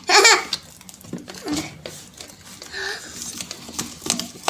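A child's short vocal sound at the start, then soft clicks and sticky squelching of homemade slime being stirred, with a few brief vocal noises.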